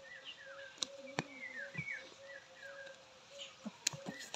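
Birds chirping with short falling calls over a low note that repeats evenly about twice a second, broken by a few sharp slaps, the loudest near the end, as two barefoot wrestlers grapple on dirt.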